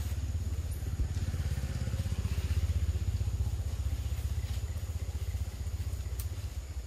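Engine running with a rapidly pulsing low rumble, growing louder toward the middle and then easing off.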